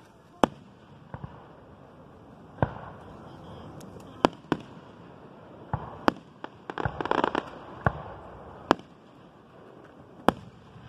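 Aerial fireworks shells bursting with sharp booms, about a dozen spread over the stretch at uneven intervals. Just past the middle there is a quick cluster of pops.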